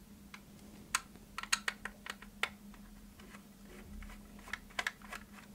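A screwdriver backing a small screw out of a hard plastic instrument case: a series of small, irregular clicks and scrapes.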